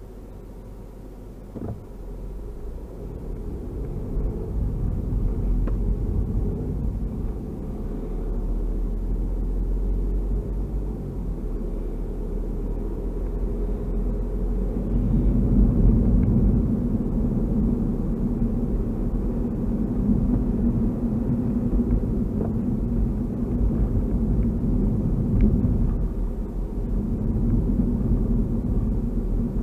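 Car cabin noise picked up by a dash cam: a low engine and road rumble that grows as the car pulls away from a standstill about two seconds in, then holds steady while driving. There is a single click just before it moves off.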